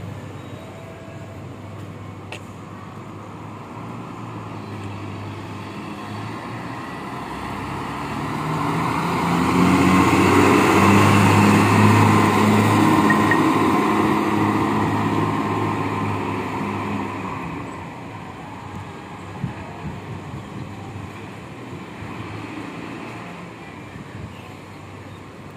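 Diesel engine of an express coach passing close by at low speed, growing louder to a peak about ten seconds in and then fading away, over a steady engine hum.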